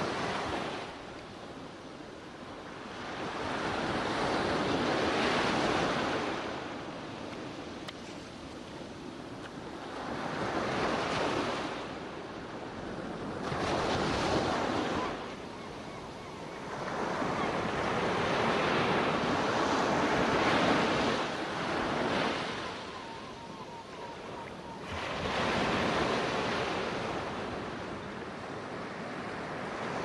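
Ocean waves breaking and washing onto a beach, swelling and falling back in surges every few seconds.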